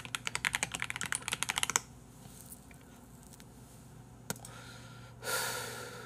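Fast typing on a computer keyboard: a quick run of key clicks that stops about two seconds in. One more lone click follows later, then a brief hiss near the end.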